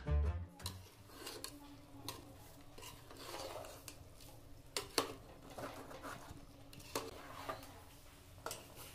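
A metal spoon stirring thick egg curry in a metal pot: soft scraping with scattered sharp clinks of spoon against pot.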